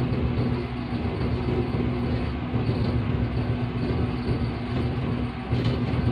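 Steady running noise inside the cab of a GEU-40 diesel locomotive on the move: a continuous engine hum over the rumble of the train on the track.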